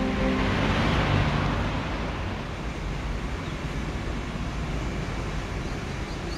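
Road traffic: a vehicle passes close by, rising to its loudest about a second in, then fading into a steady low rumble of traffic.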